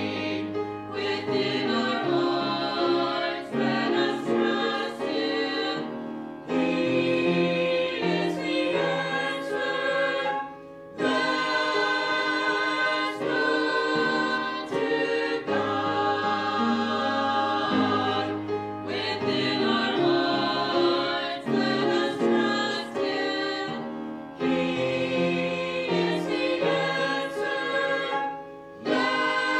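Small church choir of men and women singing a hymn, phrase after phrase with short breaks between.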